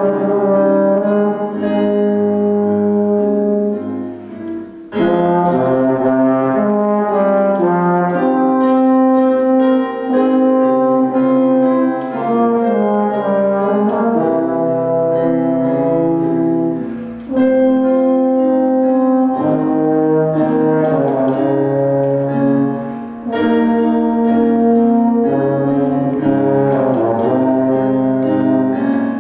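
Valved brass instrument playing a movement of a baroque church sonata, sustained notes with a second, lower line sounding beneath the melody. The music pauses briefly between phrases a few times, about four seconds in and again later.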